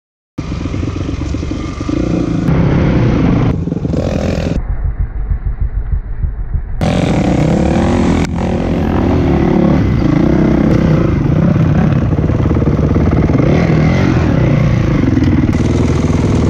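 Dirt bike engines running and revving hard, the pitch rising and falling with the throttle. The sound starts abruptly about half a second in and changes sharply a few times, as between cut-together shots.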